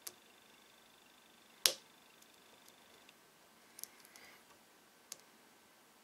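Metal lock picks working inside a padlock's keyway: a sharp click about a second and a half in, then a few fainter ticks and a brief scrape as the pick rakes the pins.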